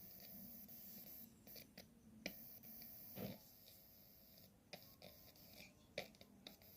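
Near silence with a few faint, scattered clicks and taps, small handling noises.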